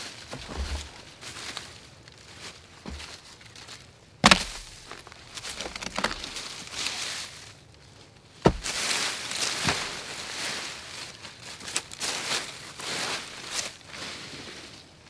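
Dry fallen leaves rustling and crunching as they are scuffed aside by feet and scraped up and tossed by hand, clearing the forest floor down to bare earth. Two sharp knocks stand out, one about four seconds in and one about eight and a half seconds in.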